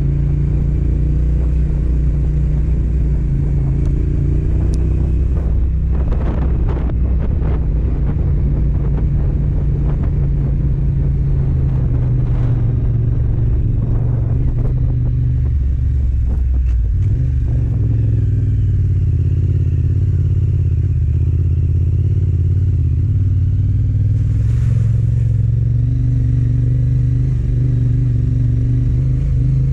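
Yamaha Ténéré 700's parallel-twin engine running steadily as the bike is ridden offroad, its pitch shifting with throttle, with a stretch of clattering knocks through the middle.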